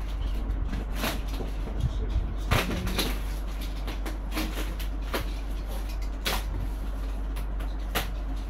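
Cardboard and plastic packing rustling and knocking as hands rummage inside a large cardboard shipping box. There are several separate scrapes and bumps, the loudest a few seconds in, over a steady low hum.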